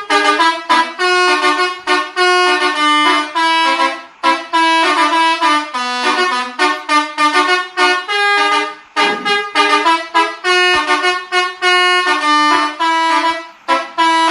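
Basuri V3 telolet horn on a tour bus playing a fast tune of short horn notes that jump up and down in pitch, with a brief pause about every four to five seconds.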